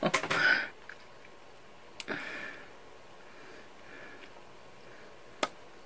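A short breathy exhale, then quiet room tone broken by two sharp little clicks about three and a half seconds apart, the first followed by a brief breathy rustle.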